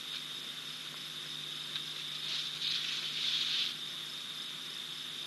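Night insects, most likely crickets, trilling in a steady high chorus. About two seconds in, a louder hiss rises over the chorus for a second and a half, then fades.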